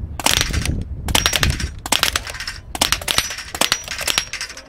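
A rapid, uneven string of pre-charged pneumatic air rifle shots from several shooters, with steel knock-down plates pinging and clanging as they are hit and fall.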